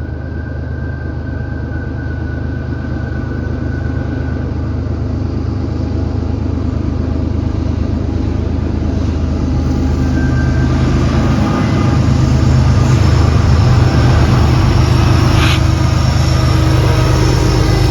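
Diesel freight locomotives working under load up a grade, their low engine drone growing steadily louder as they approach.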